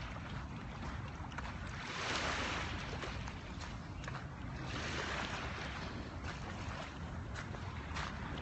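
Small waves washing onto a sandy beach, swelling twice as they break and run up the sand, over a steady rush of surf and some wind on the phone's microphone.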